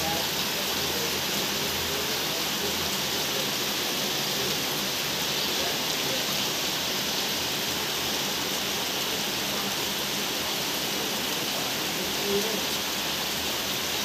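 Heavy rain pouring down on roofs and the street, a steady, even hiss.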